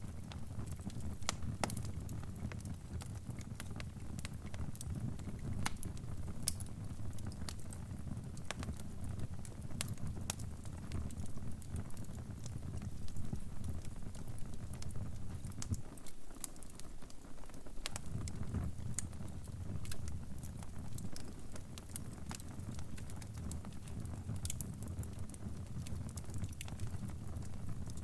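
Wood fire crackling: a steady low rumble of flames with irregular sharp pops and snaps. The rumble briefly falls away for about two seconds midway.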